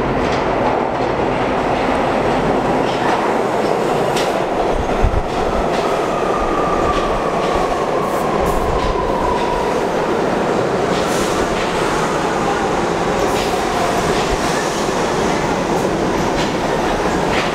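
R68 subway train pulling into an underground station: a steady, loud rumble of the cars with wheels clicking over rail joints and one sharp thump about five seconds in. A faint whine falls in pitch through the middle as the train slows.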